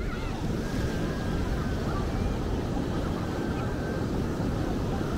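Steady outdoor ambience of a crowded beach: a constant rushing noise of surf and wind, with faint voices in the background.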